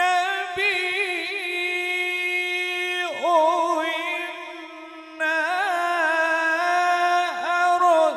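A male qari reciting the Quran in melodic tajweed style, with long drawn-out notes ornamented by quick wavering trills; he pauses briefly about five seconds in and starts a new phrase.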